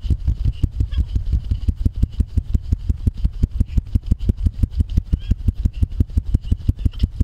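An engine running steadily, with an even, rapid low pulsing of about seven or eight beats a second.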